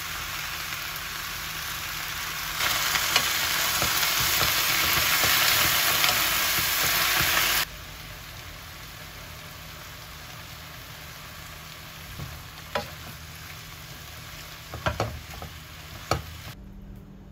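Cabbage stir-frying with soy sauce in a nonstick frying pan, sizzling steadily. The sizzle is much louder from about three to eight seconds in, then settles to a softer hiss. Near the end a wooden spatula knocks and scrapes against the pan a few times.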